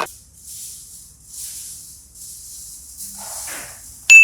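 Faint, soft hissing and rustling noise that comes and goes, then a sudden bright ding near the end that holds one steady high tone.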